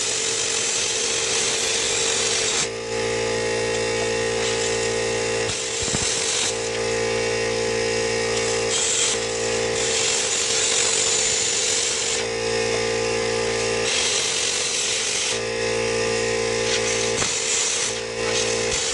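Handheld plasma cutter cutting steel plate: a steady hissing rush, with a lower steady hum that cuts in and out several times.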